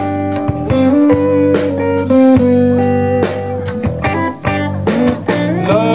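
Live blues-rock band playing an instrumental passage between sung lines: electric guitar holding and changing notes over bass guitar and a steady drum beat.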